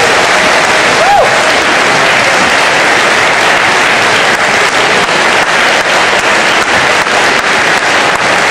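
Audience applauding steadily, with one short rising-and-falling tone about a second in.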